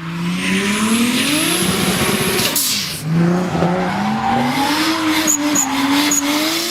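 An engine revving, its pitch climbing and falling again, with a sharp crack about two and a half seconds in.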